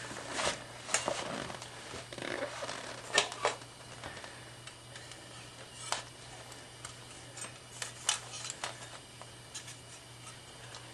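Scattered light clicks, taps and rustles of hands handling small parts, a few sharper knocks among them, over a steady low hum.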